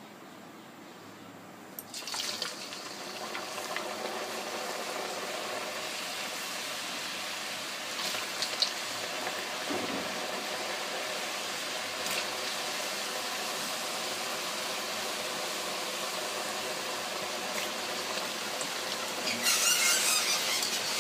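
Raw potato sticks going into hot oil in an iron kadhai about two seconds in, setting off a sudden, steady sizzle of deep-frying with a few clicks. The sizzle turns louder and sharper near the end.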